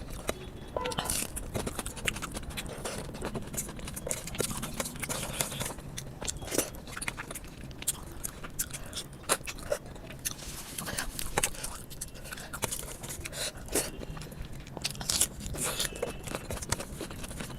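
Close mouth sounds of eating rice and chicken curry: chewing with frequent small wet smacks and clicks, scattered unevenly.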